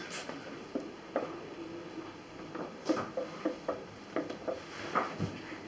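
Scattered light knocks and shuffles, about a dozen spread irregularly, from two people moving about together on a hoverboard.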